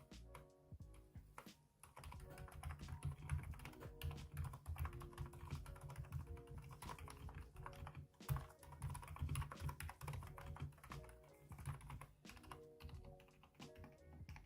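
Typing on a mechanical keyboard fitted with Kailh Box Silent Pink linear switches, whose stems carry rubber dampers to soften the press and the return. Sparse keystrokes at first, then a steady fast run of them from about two seconds in, over background music.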